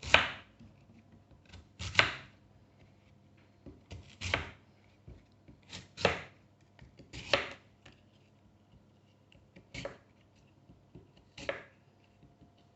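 Knife chopping an apple on a chopping board: about seven separate cuts, each a sharp knock of the blade on the board, a second or two apart.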